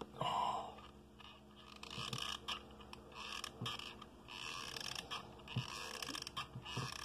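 Soft scraping and rustling handling noises with a few light clicks, from tumbled stones and a hot glue gun being worked on a tabletop.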